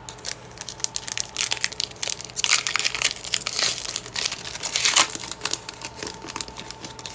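A Pokémon trading-card booster pack's foil wrapper being crinkled and torn open by hand: dense crackling, loudest in the middle.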